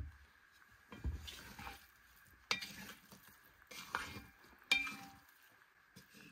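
A metal utensil knocking and clinking against a cooking pot while food is stirred: four separate knocks, about 1, 2.5, 4 and 4.7 seconds in, some ringing briefly.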